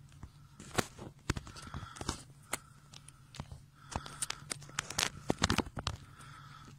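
Raindrops from a storm tapping on the window and sill, irregular sharp ticks several a second and thickest about five seconds in, over a steady low hum.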